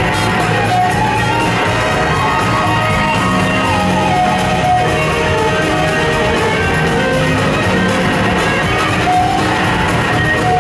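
Live blues-rock band playing, led by an electric slide guitar solo on a Gibson SG: the lead line glides up and down between notes over drums and bass.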